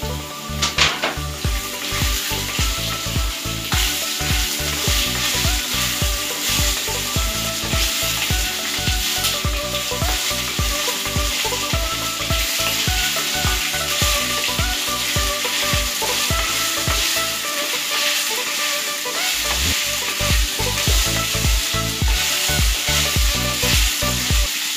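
Diced potatoes and black soybeans sizzling as they fry in a kadhai, stirred with a wooden spatula that knocks and scrapes the pan in quick repeated strokes. The stirring pauses briefly about three quarters of the way through while the sizzle carries on.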